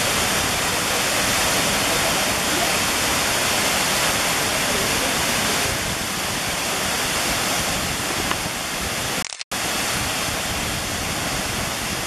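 Waterfall pouring into a rock pool: a steady, even rush of falling water, cut off for a moment about nine seconds in.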